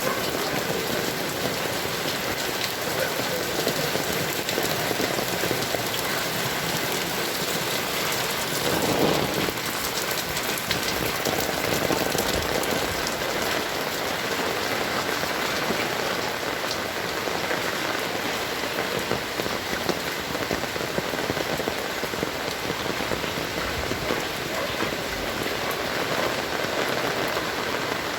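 Heavy rain falling, a steady dense hiss of drops on surfaces.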